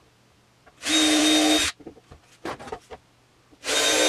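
Cordless drill boring pilot holes through plywood, in two short runs of about a second each, one near the start and one near the end, each at a steady whine. A few light knocks come in between.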